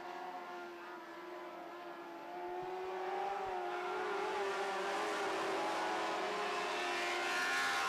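Motorcycle-engined lightning sprint cars racing on a dirt oval, their engine note wavering slightly as they run. The sound grows louder about two and a half seconds in.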